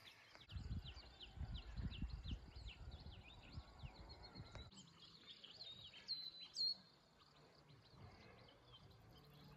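Small birds chirping over and over, many short, high, downward-sliding chirps, with two louder calls a little past the middle. A low rumble underlies the first half.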